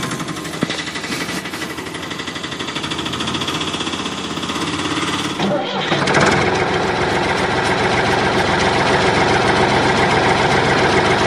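Dubbed engine sounds: a small engine running steadily, then a sudden switch about six seconds in to a louder tractor engine running.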